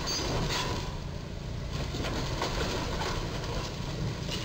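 Box truck's roof scraping and crunching against a low steel crash beam as the truck drives under it, with several sharp cracks of the roof being torn open over a low engine rumble.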